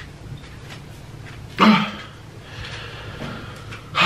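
A man straining hard to pass gas: a sudden grunt about one and a half seconds in, then a long breathy exhale, and another loud breath near the end. No fart comes out.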